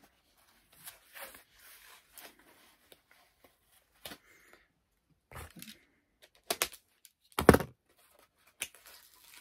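Mail packaging being handled and torn open: scattered rustling, scraping and tearing of paper, cardboard and tape, with two louder sharp rips or knocks about six and a half and seven and a half seconds in.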